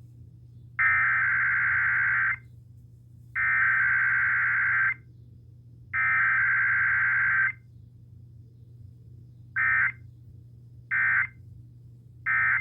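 Emergency Alert System (SAME) data bursts for a required weekly test: three long buzzing digital header bursts about a second and a half each, evenly spaced, then three short end-of-message bursts, over a steady low hum.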